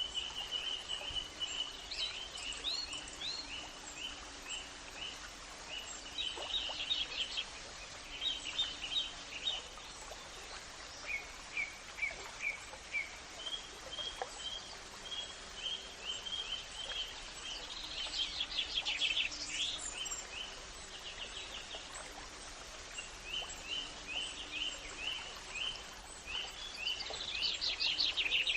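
Birds chirping and trilling, one series of quick repeated notes after another, with denser trills several times, over a faint steady background hiss.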